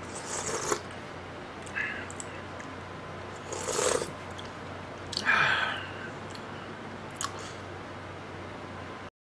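A person eating ramen soup: three louder slurps of broth and noodles, spaced a couple of seconds apart, with smaller chewing and mouth sounds between them.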